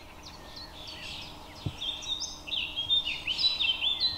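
Songbirds singing: a run of quick, high chirps and trills that grows livelier after the first second, over a faint steady hum. A soft low thump sounds once near the middle.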